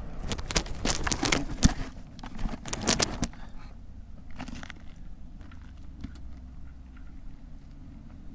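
A quick run of sharp clicks and metallic rattling for about three seconds, like small hard objects being handled, then only a low steady rumble.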